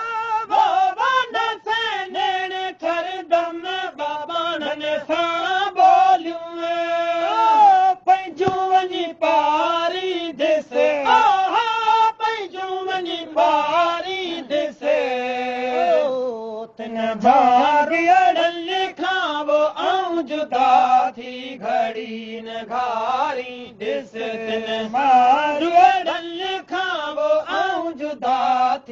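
A solo voice singing a slow, heavily ornamented Sindhi waai melody, the notes long, sliding and wavering. The melody drops to a lower register about halfway through.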